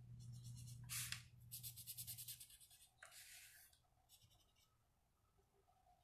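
Felt-tip marker scribbling on paper in quick back-and-forth strokes, colouring in a small area: several short, scratchy spells over the first four seconds or so, then it stops.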